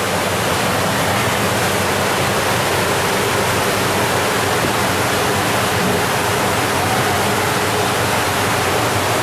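Water rushing steadily in a koi holding bowl, a constant even noise with a faint low hum beneath.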